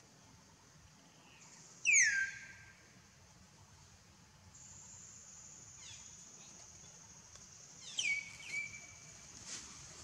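High, sharp animal calls that slide steeply downward in pitch: a loud one about two seconds in, a faint one near six seconds, and two more near the end, the last of which trails off into a short held note. A steady high-pitched hum runs under the second half.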